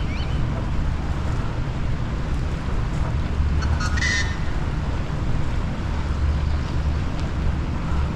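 Wind buffeting the microphone with a steady low rumble, and one short bird call about four seconds in.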